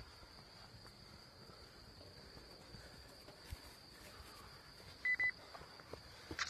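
Steady high-pitched chirring of meadow insects, with the soft footsteps of trail runners on grass coming closer near the end. Two short high beeps sound about five seconds in and are the loudest thing heard.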